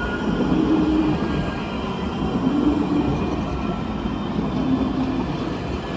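Alstom Citadis X05 tram running, a steady rolling noise with faint whining tones above it.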